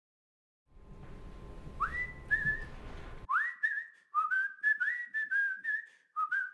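A person whistling a tune. It opens with a couple of notes that slide up, then runs into quick short notes hopping up and down. A faint room hiss underneath cuts off about three seconds in.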